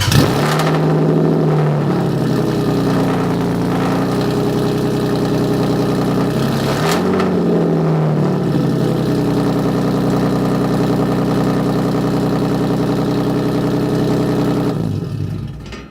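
Lexus IS300's 2JZ-GE inline-six, fitted with DNA headers, a Megan Racing Y-pipe and a muffler-less 2.5-inch straight-back exhaust, just started and settling into a loud idle. There is one brief throttle blip about seven seconds in, and the engine stops near the end.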